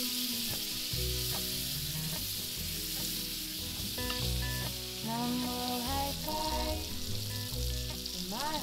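Salmon fillets frying in oil in a cast-iron skillet: a steady sizzling hiss, with background music underneath.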